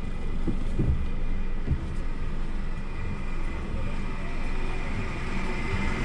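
Road noise inside a moving car's cabin: steady low engine and tyre rumble, with a few soft thumps from the road in the first two seconds.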